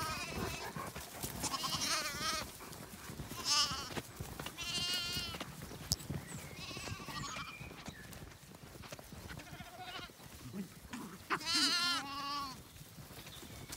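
Young Zwartbles lambs bleating over and over, high quavering calls from several lambs, crowding round the shepherd in expectation of their evening feed. The bleats come in a string, loudest around two seconds in, around five seconds in and again near the end.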